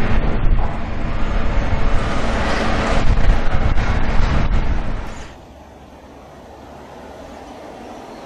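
Road traffic noise with wind rumbling on the microphone, then a sudden drop to a much quieter background hum about five seconds in.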